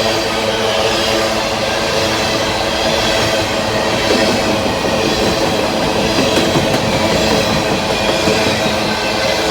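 Diesel locomotives of a long empty coal train passing under power, their engines making a loud, steady drone of many held tones.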